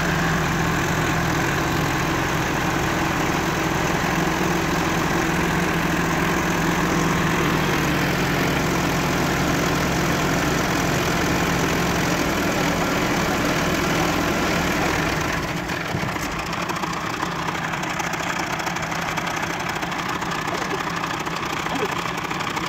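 Massey Ferguson tractor's diesel engine running steadily while its hydraulics tip up a trolley bed through the newly repaired jack. About fifteen seconds in, the engine drops back to a quieter idle.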